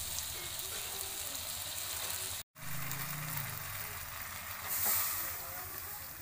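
Vegetable curry frying in a metal kadai over a wood fire, a steady sizzle. Almost five seconds in, water poured from a steel bowl hits the hot pan with a louder hiss that then settles back. The sound cuts out briefly about two and a half seconds in.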